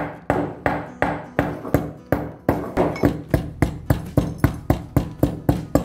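Metal pestle pounding kattha (catechu) chips to powder in a metal mortar: steady strikes about three a second, quickening toward four a second near the end, each with a short metallic ring.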